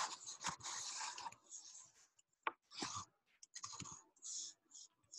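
Faint, irregular taps and short scratches of a stylus writing on a tablet screen.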